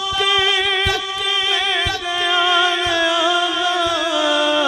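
A male naat reciter singing through a public-address system, holding one long note with a wavering pitch that slides downward near the end.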